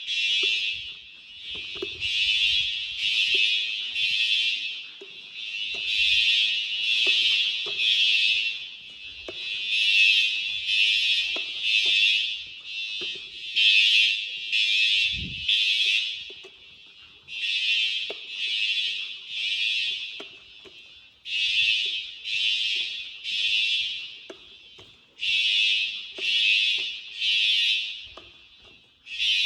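Fire alarm horn sounding the temporal-three evacuation pattern: three harsh blasts about a second apart, then a pause, repeating over and over, the signal of an activated fire alarm system under test.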